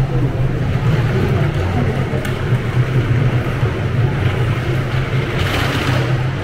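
A steady low mechanical rumble, with a short burst of hiss about five and a half seconds in.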